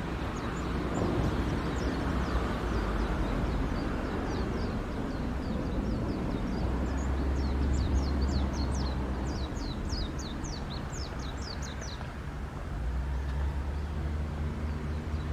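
Low, steady engine drone of a ship and its assisting tugboat, with birds chirping in quick runs of short falling notes, thickest in the middle.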